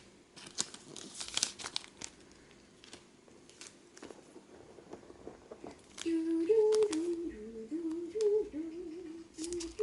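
Scattered crinkling and clicking from handling. From about six seconds in, a person hums a tune in held notes that step up and down.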